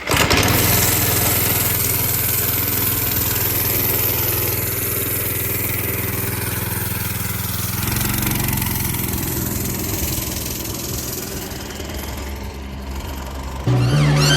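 Go-kart's 6.5 hp 200cc single-cylinder engine running steadily, its speed changing about eight seconds in. A louder low sound comes in near the end.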